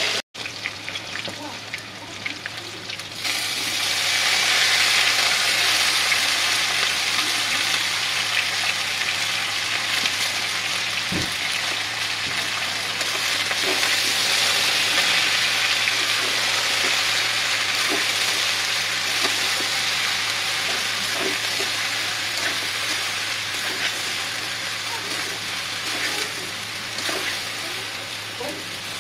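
Potatoes, shredded cabbage and squash frying in oil in a metal karahi, a steady sizzle that grows louder about three seconds in, with a metal spatula stirring and scraping the pan.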